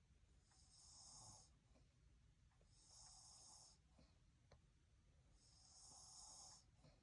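A man with sleep apnea snoring softly in his sleep: three snoring breaths, one every two and a half to three seconds. A faint click comes about four and a half seconds in.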